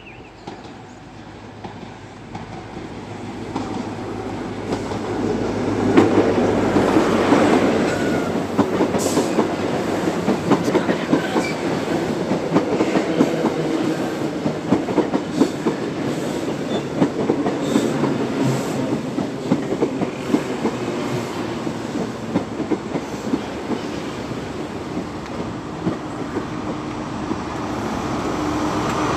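InterCity 125 (HST) high-speed train running into the platform, getting louder over the first few seconds, then the Mark 3 coaches' wheels clicking over rail joints as they pass. Near the end the steady drone of the rear Class 43 diesel power car's engine builds as it comes by.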